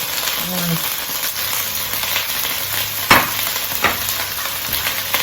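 Lemongrass, red chili, garlic and shallot sizzling in hot oil in a frying pan with chicken, a steady frying hiss. Two sharp knocks come about three and four seconds in.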